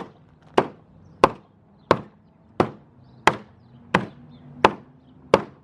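Nine hard, evenly spaced blows, about one and a half a second, struck against a wood block glued down with Advantech spray-foam adhesive in an impact test of the bond. The bond holds; the wood is not knocked loose.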